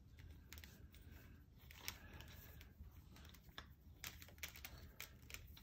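Faint, scattered small clicks and taps of plastic air tubing being twisted onto the metal outlet fitting of an air pump that is not running, over a low room hum.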